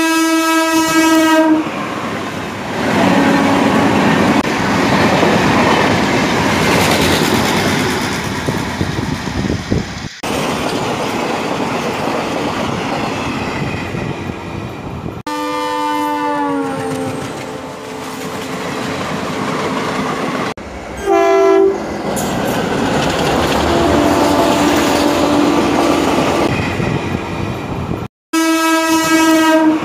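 Recorded sound of a real train, dubbed in place of the toy's own sound: a horn blast at the start, another that falls in pitch around the middle, and a short one a little later. Between them the train runs with a steady rumble and clatter of wheels on the track. The recording jumps at a few abrupt cuts.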